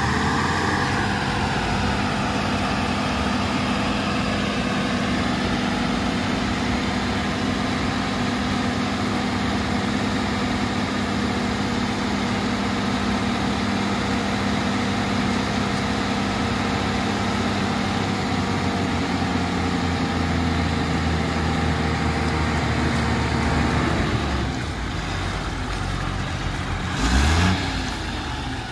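Diesel engines of Tata tipper trucks running steadily, with a steady whine as the tipper bodies are raised hydraulically. The whine stops about four-fifths of the way through, and a brief loud burst follows near the end.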